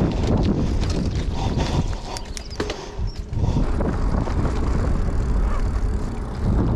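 Wind buffeting a bike-mounted action camera's microphone while cycling, along with tyre rumble and rattling from the bicycle over a rough road surface. About two seconds in there is a brief lull with a few sharp clicks.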